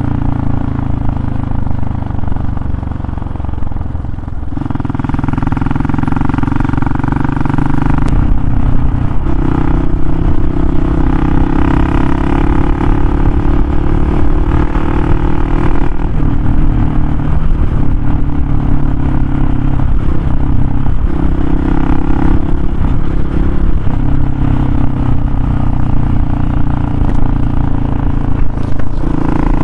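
Motorcycle engine running while riding, its note stepping up and down several times as the speed changes, over a steady low rumble.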